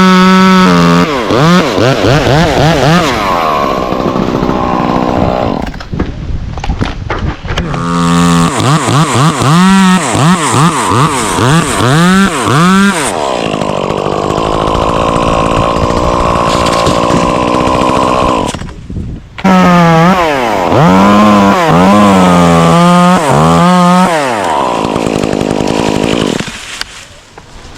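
Stihl chainsaw revving up and down over and over and running long steady stretches at full throttle, as when cutting through oak wood. It drops off briefly twice and falls away near the end.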